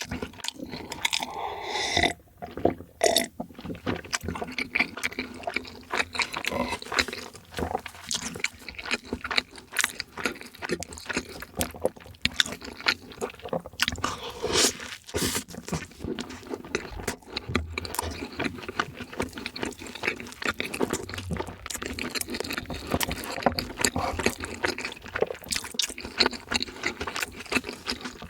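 A person eating close to the microphone: wet, sticky chewing with many small sharp mouth clicks and occasional crunches, going on without a break.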